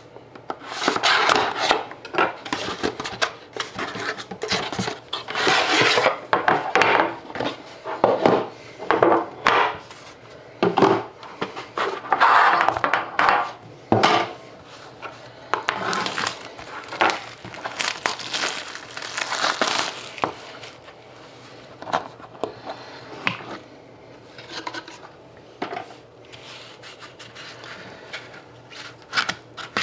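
Trading-card packaging and cards being opened and handled by hand: irregular crinkling and rustling of wrapper, with scraping and sharp taps and clicks.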